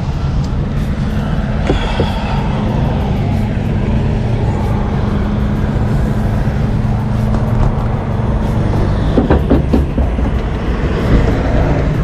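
Semi-truck diesel engine idling close by, a steady low rumble, with a few short knocks about two seconds in and again around nine to ten seconds in.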